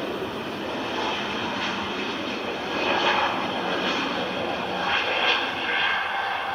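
Airliner engines running loud and steady, a noisy rush that swells and eases, peaking about three seconds in and again near five seconds.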